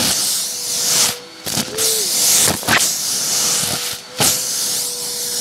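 Hoover vacuum cleaner running through its crevice tool on a shag rug, sucking up small dry pasta noodles: a steady motor whine with rushing air hiss and a few crisp clicks as noodles are pulled in. The sound dips briefly twice, about a second in and again near four seconds.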